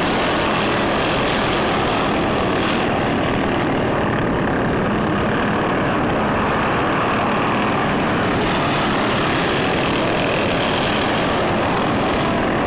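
Several racing lawn mowers' small engines buzzing hard at racing speed, a massed engine sound that swells a few times as machines pass close by.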